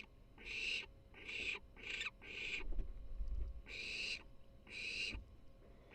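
Barn owl chick giving a run of short, rasping hiss calls, about six of them, each about half a second long. This is the calling the uploader calls purring in excitement. A low rumble sits under the calls in the middle.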